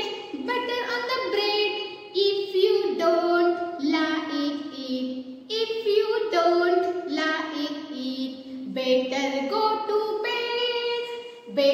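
Children singing a nursery rhyme, a string of high sung notes changing about every half second.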